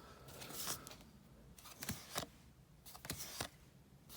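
Trading cards being handled and flipped through by hand: a faint rustle, then a few soft, short card clicks and slides.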